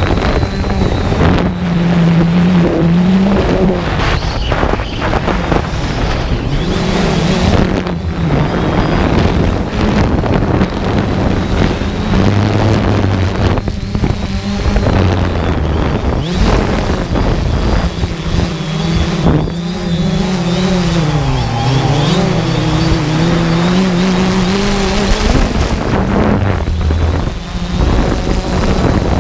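Remote-controlled aircraft's electric motor whining, its pitch rising and falling as the throttle changes during low, fast flying, with a sharp dip and recovery about two-thirds of the way through. Wind buffets the microphone throughout.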